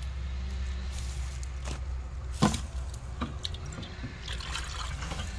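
Water dripping and trickling as spring onions are rinsed and water is tipped out of a metal cooking pot. A sharp knock comes about halfway through.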